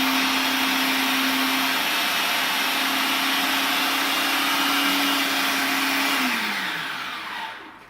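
Electric blender running at full speed, whizzing chickpeas and tahini paste together, with a steady motor hum. About six seconds in it is switched off and the motor winds down, its pitch falling until it stops.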